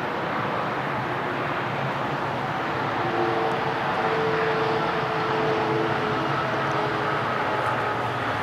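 Boeing 777 freighter's GE90 engines as the jet touches down and rolls out on the runway: a steady rushing noise, with a faint humming tone coming in about three seconds in.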